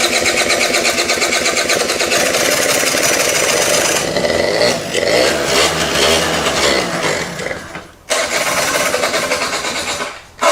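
Honda Spree scooter's small two-stroke engine cranked on its electric starter in two long bursts, the first about eight seconds, the second shorter and stopping just before the end. It is turning over on carb cleaner sprayed into the intake, bypassing a clogged carburetor.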